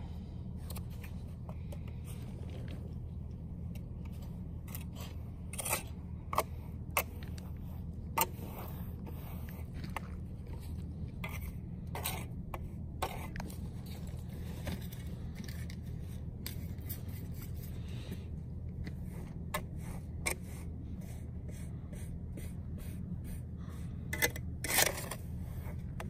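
Flat steel hand trowel scraping and clicking across freshly poured rubber granules in short, irregular strokes as the surface is smoothed. A steady low hum runs underneath.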